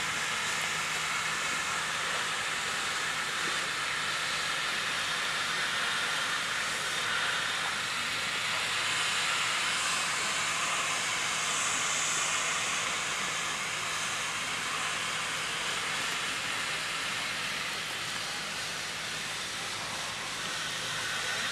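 Fountain water falling and splashing into its pool, a steady rushing hiss.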